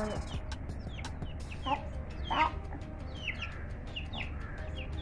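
Domestic chicks peeping: many short, high cheeps that slide downward, repeating throughout, with a couple of louder calls about two seconds in.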